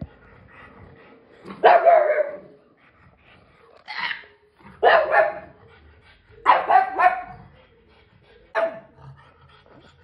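A dog barking: about six short, sharp barks at irregular intervals, some in quick pairs.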